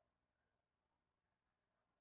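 Near silence: a pause between the dove's coos.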